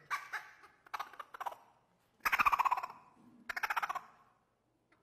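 Squirrel game call imitating a squirrel's chattering bark: four short bursts of rapid pulsing chatter, the third the loudest and dropping in pitch.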